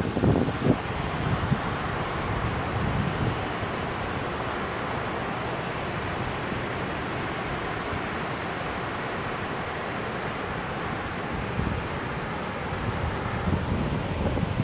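A steady, even rushing noise, with faint high chirps like crickets repeating about twice a second.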